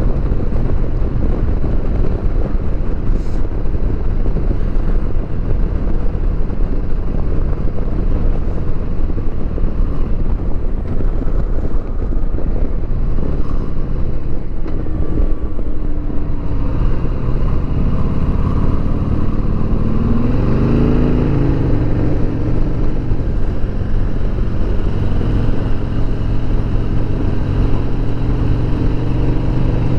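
2020 Harley-Davidson Sport Glide's V-twin engine running at highway speed under a steady rush of noise. About twenty seconds in, the sound briefly rises and falls in pitch.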